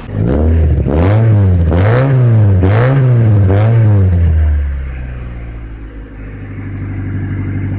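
Engine revved in about four quick blips, roughly one a second, each rising and falling in pitch, then dropping back to a quieter steady running note.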